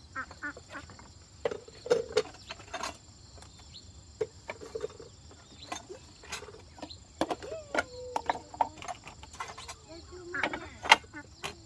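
A steady high insect-like drone under many scattered sharp clicks and knocks, the loudest knock near the end, with a few brief voice sounds.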